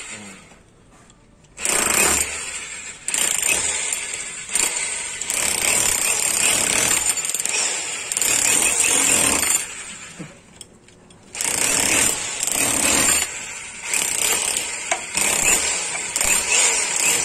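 INGCO 1050-watt rotary hammer in hammer-only mode, driving a flat chisel into a concrete hollow-block wall to chip out a wiring groove: loud rapid hammering with chipping of the block. It starts about a second and a half in, breaks off briefly about ten seconds in, then starts again.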